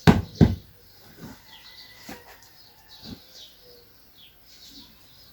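Small birds chirping repeatedly in short falling notes, with two loud thuds just after the start and a few softer thuds later.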